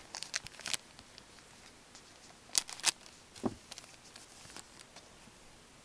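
O-Pee-Chee hockey cards being shuffled and sorted by gloved hands: a quick run of light cardboard clicks and flicks at the start, then two sharper snaps about halfway through and a duller tap just after.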